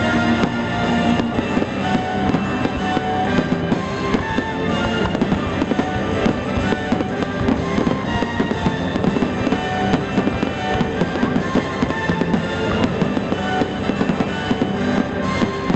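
Fireworks popping and crackling in rapid succession over music.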